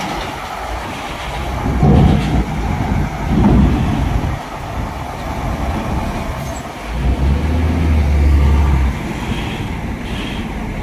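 A coach bus driving over a steel ferry loading ramp, its tyres clanking across the ramp plates over the engine's low running. A deep low rumble rises about seven seconds in and holds for about two seconds.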